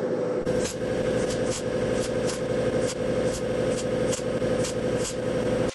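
MIG welder arc crackling and buzzing steadily as wire is fed into thin door sheet steel, filling mirror holes with tacks at a low setting of about 16 volts. Short sharp pops recur about twice a second over the crackle.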